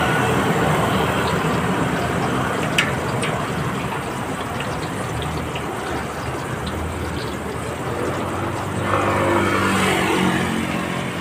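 Street traffic: a steady wash of passing cars and scooters, with one vehicle going by closer about nine seconds in.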